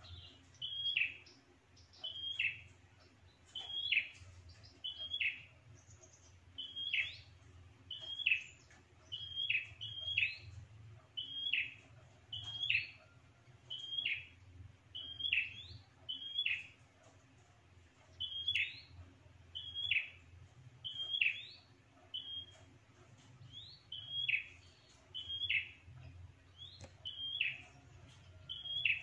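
Prenjak (prinia) calling over and over, about one call a second: each call a short high note followed by a quick downward sweep, repeated steadily in the style used as a lure call.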